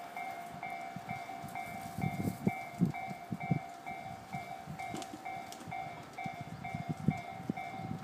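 Japanese railway level-crossing warning bell ringing in a steady two-tone clang, about two strokes a second, meaning a train is approaching. Irregular low thumps sound over it.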